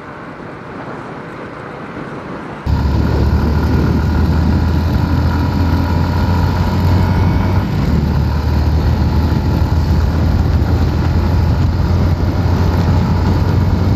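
Motorcycle ride on a Yamaha Sniper 150: a steady low engine rumble under a loud rushing noise that sets in suddenly about three seconds in. Before that there is quieter steady road noise.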